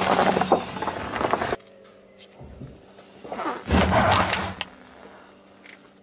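A car tyre rolling over a pile of candy-coated chocolates, crunching them for about a second and a half before the sound cuts off. Then, about three seconds in, a tyre rolls onto a plastic toy football and squashes it, a rough rumbling, crackling noise lasting just over a second.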